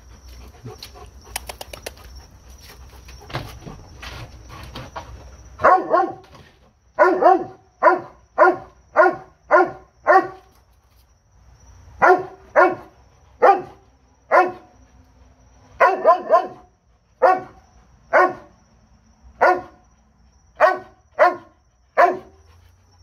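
Doberman barking in quick runs of sharp barks, several a second with short pauses, starting about six seconds in, while jumping up against a tree trunk. Before that there are a few seconds of low rustling and scuffling.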